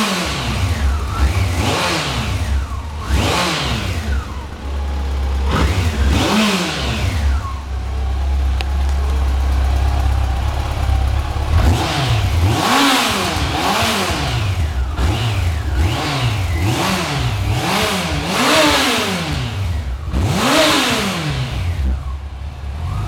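Yamaha FJR1300's inline-four engine free-revved on the stand through its stock exhaust: a few separate throttle blips, then from about halfway a quick run of blips about once a second, each rev rising and falling back.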